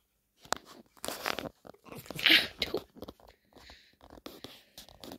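Pet red fox rolling and scuffling in blankets on a bed, the fabric rustling in a string of short crackling noises, loudest about two seconds in.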